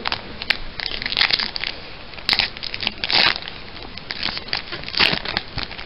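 Foil wrapper of a Pokémon trading card booster pack being crinkled and torn open by hand: irregular crackling with several louder rips, about one, two, three and five seconds in.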